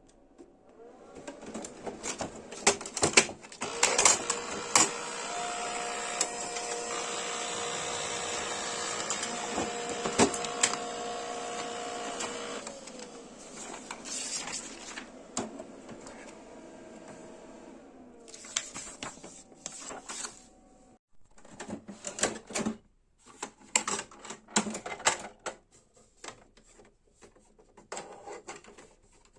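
Brother printer running its mechanism: motor whirring with a steady whine and rapid clicking of gears and rollers for about twelve seconds, then fading, followed by scattered sharp clicks and clacks.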